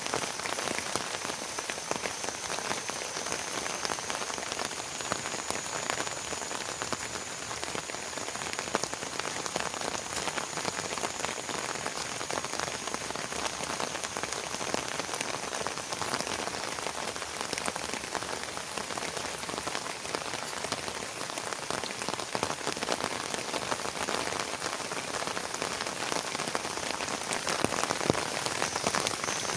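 Heavy rain falling steadily, with many individual drops ticking on a nearby surface.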